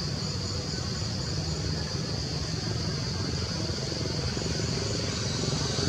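Steady low rumble of distant motor traffic under a constant high-pitched drone, with no sudden sounds.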